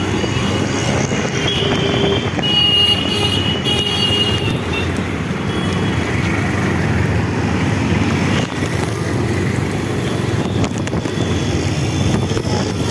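Road traffic heard while riding through wet city streets: a steady rumble of engines and wind noise. A vehicle horn sounds for about two seconds, starting a couple of seconds in.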